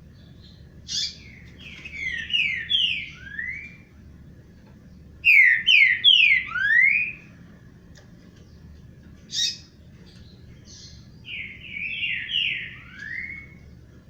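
Songbird singing three loud phrases of quick falling notes, each about two seconds long, with short sharp high notes between the phrases.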